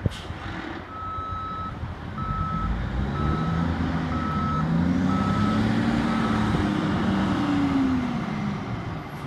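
Backup alarm on a 1991 International 8200 day cab tractor beeping six times at a steady single pitch as the truck reverses. Under it the truck's Cummins NTC diesel engine runs, its note rising in pitch and then falling away near the end.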